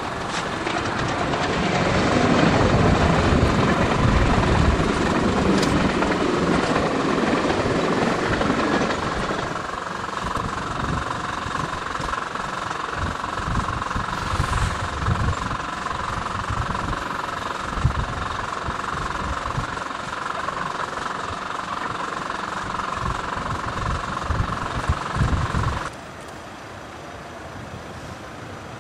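Class 66 diesel locomotive running under power as it hauls a rake of coaches past, its engine mixed with wheel and rail noise. The sound shifts abruptly about a third of the way in and drops to a quieter, more distant engine near the end as the shots change.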